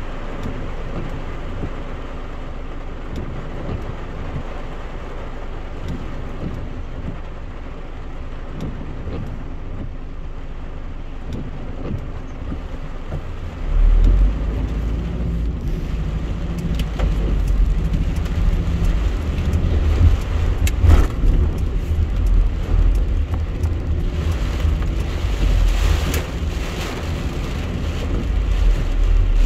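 Heavy rain on a car's windshield and roof, heard from inside the cabin, over the car's steady running noise. About fourteen seconds in, a deep low rumble rises and stays as the car pulls away on the wet road.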